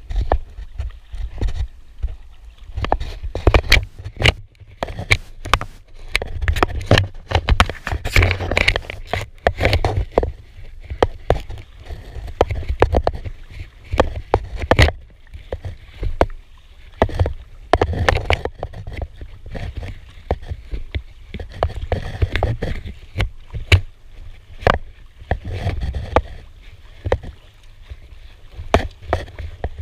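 Kayak paddle strokes from an Itiwit 1 inflatable kayak: the double-bladed paddle dips and splashes into the sea, water slaps and gurgles against the inflatable hull, and sharp clicks and knocks come from the paddle and boat, repeating stroke after stroke over a steady low rumble.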